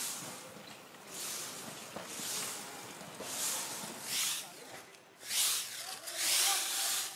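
Stiff stick broom (a Filipino walis tingting of thin coconut-leaf ribs) sweeping grit on concrete pavement: a dry swish about once a second, some seven strokes.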